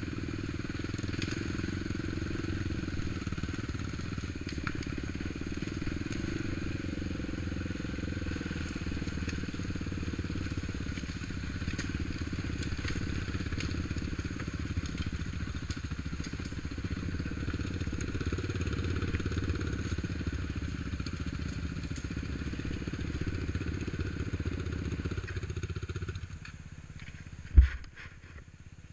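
ATV engine running steadily, then stopping about 26 seconds in, followed by a single sharp knock near the end.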